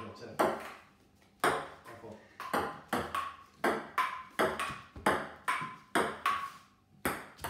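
Table tennis ball clicking back and forth off rubber paddles and a wooden dining table in a rally, about two to three hits a second, some hits leaving a brief ring. The hits pause briefly about a second in and again near the end.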